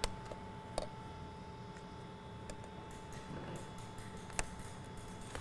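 Plastic electrical connectors being unclipped from the intake sensors on a plastic airbox: a few sharp clicks, the loudest about four seconds in, over a faint steady tone.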